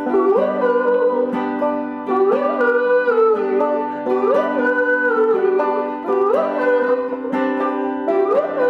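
Acoustic folk band playing: banjo and guitar picking over sustained chords, with a sliding melody line that swoops up and settles, repeating about every two seconds.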